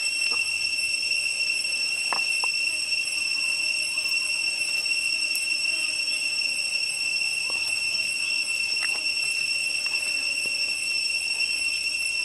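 A steady, high-pitched insect drone that holds one pitch throughout, with a few faint clicks.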